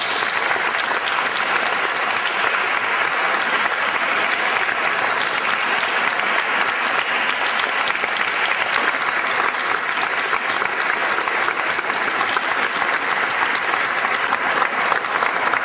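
Audience applauding steadily, a long round of clapping.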